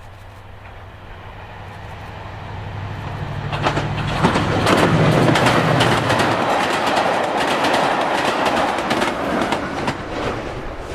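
A diesel-hauled train approaching and passing close by. The engine note builds and drops in pitch about four seconds in as the locomotive goes by, then the wheels clatter over the rail joints as the coaches roll past.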